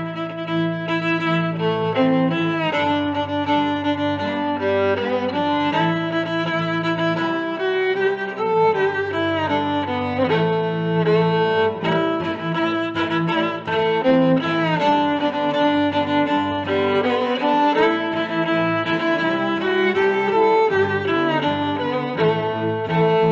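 Background music of bowed strings, violin over cello, playing a melody of sustained notes.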